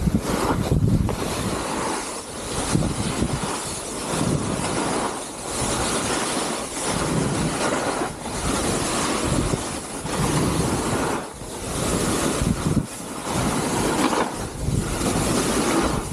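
Short skis scraping and hissing through coarse spring snow in quick linked turns, swelling and fading about every second and a half, with wind buffeting the microphone.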